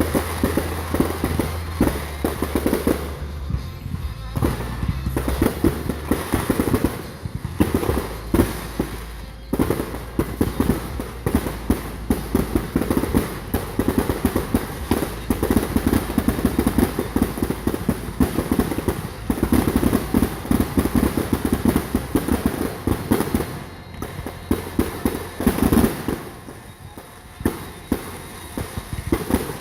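Fireworks display going off in quick succession: a dense run of bangs and crackling with no pauses. Low, steady bass notes that change in steps run underneath and stop about 26 seconds in.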